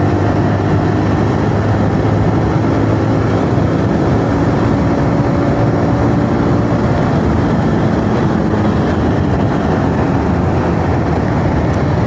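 Bajaj Pulsar 220F's single-cylinder engine running at highway speed, about 70 to 90 km/h, with steady wind rush over the bike-mounted microphone.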